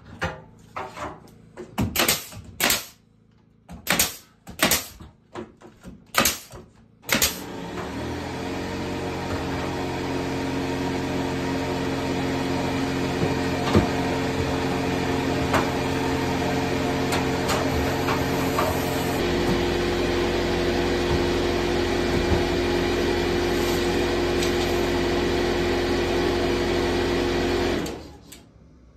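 Several sharp knocks, then an air compressor starts up and runs steadily for about twenty seconds, changing tone partway through and shutting off suddenly near the end. A few faint clicks sound over its running.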